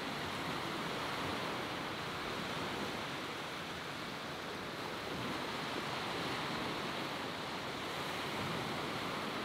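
Gentle surf: small waves breaking and washing over the shallows in a steady, even wash.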